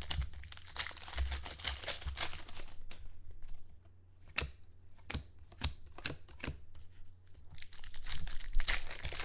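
Foil trading-card pack wrapper crinkling and tearing as the pack is opened. For a few seconds in the middle it gives way to scattered sharp clicks of cards being handled and flipped. The crinkling comes back near the end.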